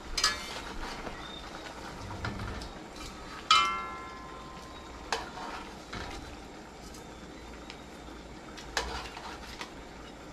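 A long metal spoon stirring fish in an aluminium pot, with four sharp clinks of metal on metal, the loudest about three and a half seconds in, ringing briefly.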